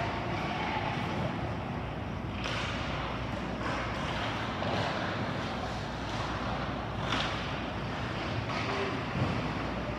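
Ice hockey game sounds in a rink: a steady wash of skate blades scraping and carving the ice, with a few sharper short scrapes, and distant voices of players and spectators.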